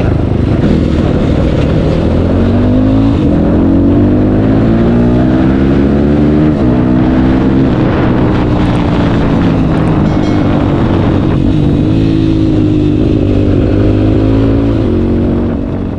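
Bored-up Honda CRF single-cylinder engine running under way. Its pitch climbs with the revs and drops sharply at gear changes about three, six and a half and eleven seconds in. The worn primary and secondary gears in the clutch housing, which caused a hum, have just been replaced.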